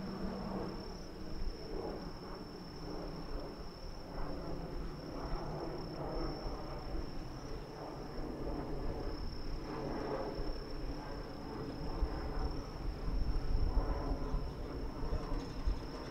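Crickets singing: one continuous high-pitched trill that never breaks. Under it runs an uneven low background rumble that grows louder near the end.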